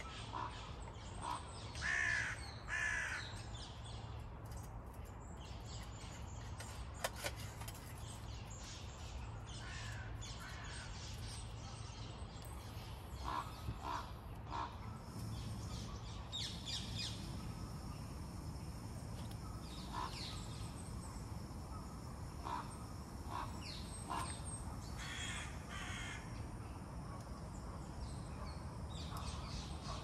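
Crows cawing now and then, loudest about two to three seconds in, over a steady low hum.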